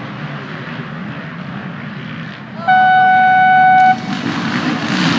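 A line of enduro dirt bikes idling on the start line, then a single loud steady horn blast of just over a second, about two and a half seconds in: the start signal. Right after it the field of bikes revs away, the engine noise rising toward the end.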